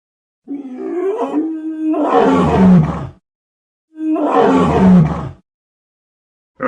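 Dinosaur roar sound effect, heard twice: a long growling roar, then after a second's silence a shorter one that falls in pitch.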